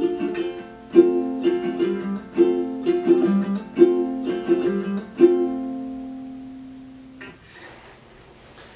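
Ukulele strummed in chords, the song's final bars, with a last chord about five seconds in that rings out and fades over a couple of seconds. Faint rustling near the end.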